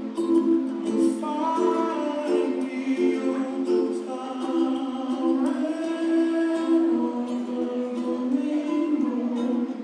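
Music: a Hawaiian-style song, singing over ukulele, with held notes and a stepping melody.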